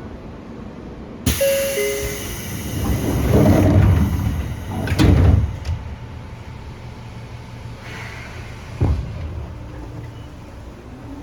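Seibu New 2000 series train doors closing. About a second in there is a sudden hiss and a short falling two-note door chime. Then the doors slide shut and close with a heavy thud about five seconds in, followed by another knock near nine seconds.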